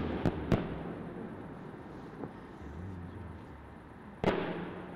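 Aerial firework shells bursting. Two sharp bangs come in quick succession at the start, a faint one about two seconds in, and a louder one with an echoing tail about four seconds in.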